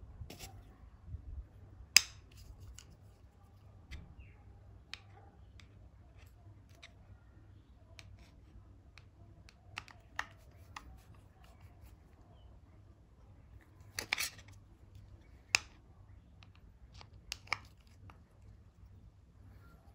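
Scattered sharp metallic clicks and taps from handling a steel pot-style fishing magnet and fitting a screwdriver into its centre bolt. The loudest click comes about two seconds in, with a quick cluster of clicks around fourteen seconds.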